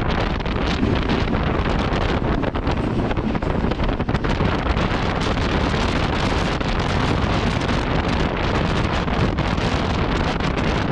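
Passenger train running at speed, heard from inside the coach: a loud, steady rush of rail and wind noise with wind buffeting the microphone, dotted with small clicks and rattles.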